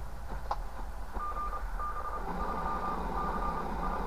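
Yaesu FRG-7 communications receiver's loudspeaker giving steady hiss as it is tuned. From about a second in, a received whistle-like tone beeps on and off in dashes of uneven length. A short click comes about half a second in.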